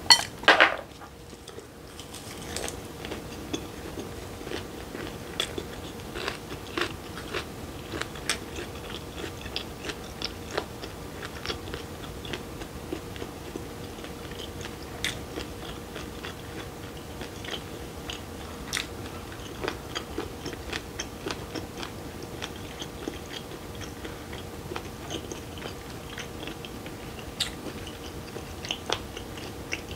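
A person biting into and chewing a raw fish and lettuce wrap up close: one loud crunching bite about half a second in, then steady crisp chewing with many small crunches and mouth clicks.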